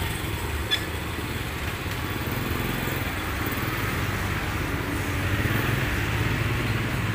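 Steady rumble of motor traffic, swelling a little partway through, with one small click about a second in.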